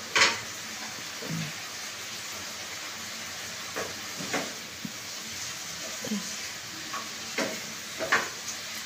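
Vegetables sizzling in a stone-coated frying pan with a steady hiss, stirred with a wooden spatula that scrapes and knocks against the pan every second or two.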